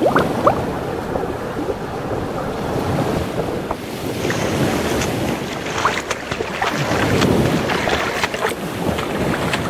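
Water rushing around a camera moving through the sea while snorkeling, with a few bubbly gurgles at the start. About halfway through, splashing and sloshing pick up as the camera comes up to the waterline.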